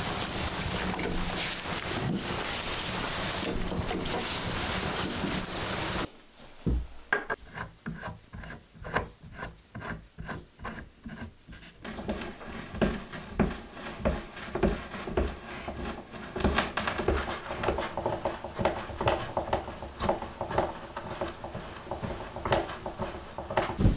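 A steady rushing hiss for the first few seconds. Then a hand brace and bit boring into knotty pine wall boards: a rhythmic rasping of the bit in the wood with each turn of the crank, at first about two strokes a second, then denser and more continuous.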